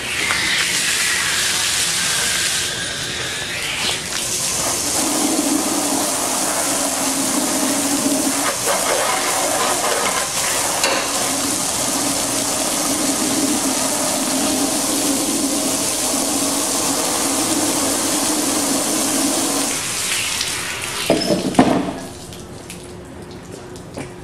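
Water poured from a container onto a Posiflex touchscreen terminal, dousing a flame, with a falling pitch over about four seconds. It is followed by a steady spray of water splashing over the terminal and its wire shelf until about twenty seconds in, then a few knocks as the spray stops.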